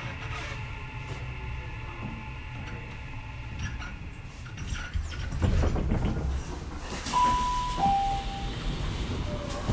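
Interior of a Tokyu 6000 series electric train as it comes to a stop at its terminal: a low rumble with a faint whine that dies away, a loud burst of compressed-air hiss about halfway through, then a two-note falling chime near the end.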